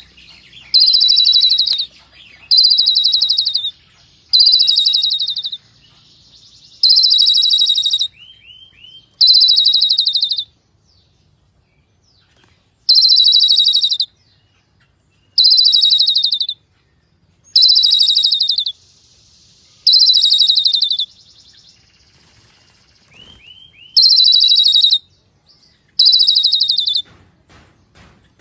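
A bird calling: a loud, high call about a second long, repeated eleven times at roughly two-second intervals with two longer pauses, and a few faint short chirps in between.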